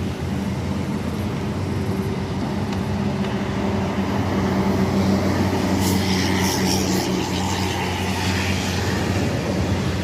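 Tour bus engine running steadily, swelling in the middle as the bus moves close by, with a brief burst of hissing about six seconds in.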